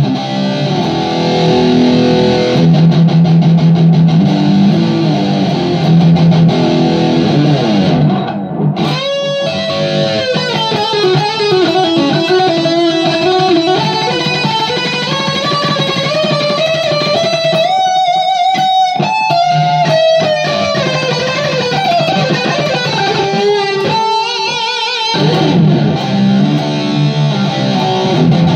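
Stratocaster-style electric guitar played through a Vox 20-watt tube/digital hybrid amp on a distorted channel. It starts with chords and riffs, moves about nine seconds in to a single-note lead line with string bends, and returns to riffing near the end.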